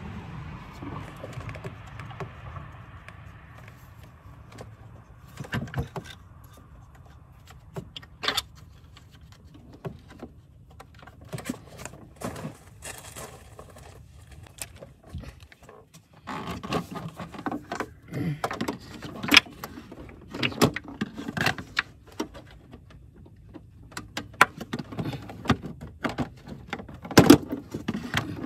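Scattered metallic clicks, taps and clatters of hand tools and engine parts being handled and fitted under the hood, coming more often in the second half, over a low steady background hum.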